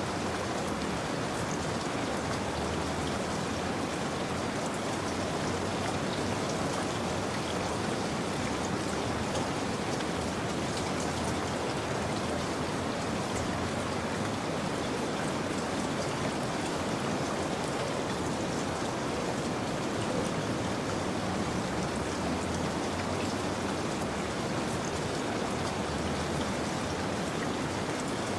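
Steady rain falling, an even hiss with faint ticks of individual drops.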